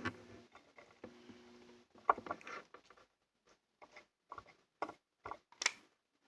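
Scattered light clicks and taps from small tools and wires being handled during soldering work, with a faint low hum over the first two seconds.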